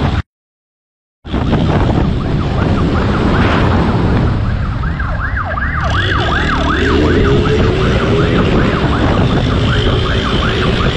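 Police siren yelping in fast rising-and-falling sweeps from a few seconds in, over heavy wind rush and a motorcycle engine running hard. About a second of dead silence near the start breaks the sound.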